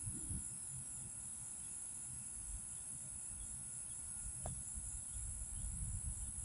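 Steady, high-pitched chorus of insects chirring over a low, uneven rumble, with a single faint click about four and a half seconds in.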